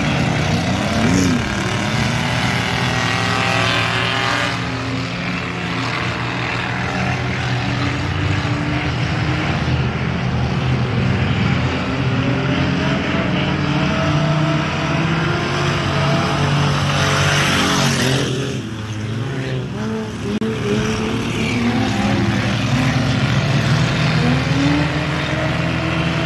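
A pack of four-cylinder enduro race cars running hard around a dirt oval. Several engine notes overlap and rise and fall in pitch as the cars accelerate and pass, with a brief rush of noise about two-thirds of the way through.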